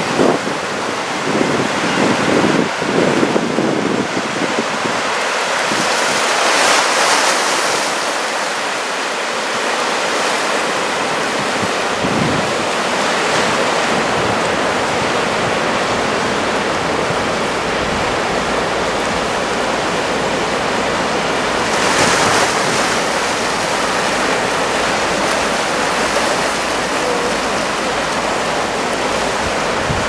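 Surf of about 1.5 m breaking and washing toward the shore in a steady rush, swelling louder about a quarter of the way in and again about two-thirds through. From just past the middle, a low rumble of wind buffets the microphone underneath.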